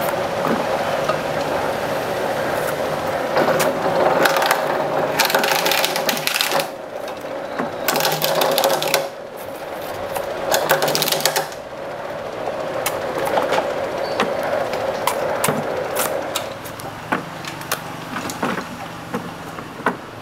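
A small motor-driven machine runs with a steady hum, with bursts of scraping and many scattered sharp clicks and knocks. The hum stops about three-quarters of the way through, leaving the clicks and knocks.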